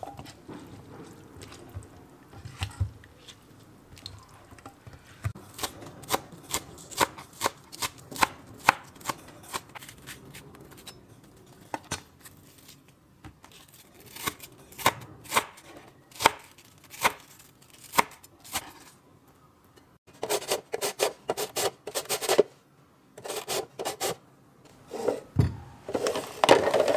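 A kitchen knife slicing a scallion into shreds on a cutting board, crisp single strokes about two a second. Near the end come quicker rasping strokes as a vegetable is pushed along a hand julienne slicer.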